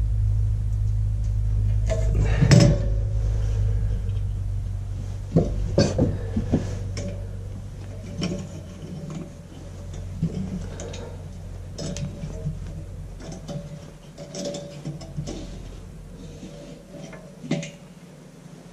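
Clanks and clinks of a pipe wrench working the threaded fitting of an air compressor's pressure switch, the loudest a sharp clank about two and a half seconds in. Scattered lighter metal clicks follow as the switch is turned loose and unscrewed by hand, over a steady low hum that fades out about halfway.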